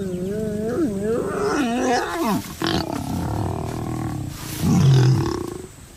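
Lions calling during mating: wavering, rising and falling growls through the first seconds, then a louder, deeper snarl about five seconds in.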